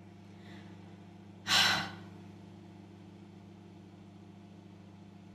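A woman's short, sharp sigh close to the phone's microphone, about a second and a half in, over a steady low hum.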